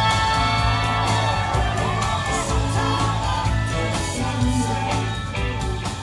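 Rock music with guitar, a steady beat and singing.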